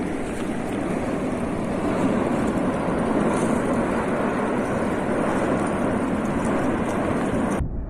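Erupting Cumbre Vieja volcano: a steady, dense rushing rumble with no separate bangs, cutting off suddenly near the end.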